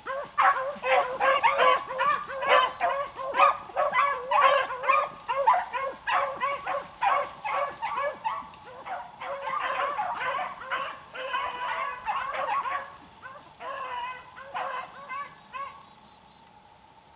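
A pack of beagles in full cry, a rapid run of overlapping yelping bays as the hounds push a rabbit's track. The baying thins out and dies away shortly before the end.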